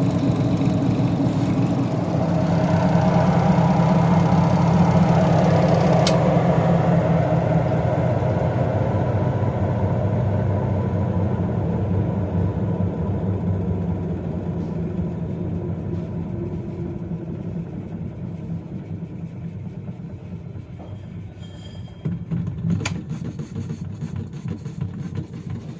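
Semi-automatic washing machine's spin motor and spin tub running on a test after the spin assembly's nut and bolt were retightened. It is a steady mechanical hum that swells in the first few seconds, then slowly fades as the tub coasts down. A few sharp knocks come near the end.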